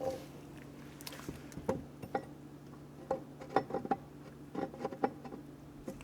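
Light, irregular metallic clicks and taps of steel transmission parts being handled and fitted together by hand, over a steady low hum.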